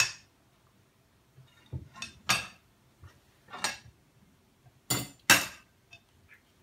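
Mussel shells and a fork clinking against a plate while mussels are eaten: a series of sharp, irregularly spaced clinks, the loudest about five seconds in.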